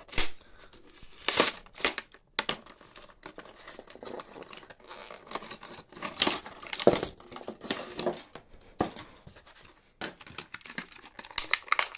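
A toy blister pack, a clear plastic shell on a cardboard card, being torn open by hand: tearing and crinkling in irregular bursts, the loudest about a second in.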